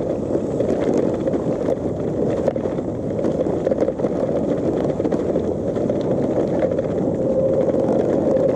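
Steady rushing of wind buffeting the camera microphone, mixed with the rolling noise of a gravel bike's tyres on a wet path at speed.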